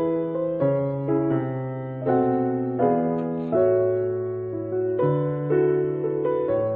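Background music: a gentle, slow keyboard tune in piano tones, with new notes and chords struck about once or twice a second.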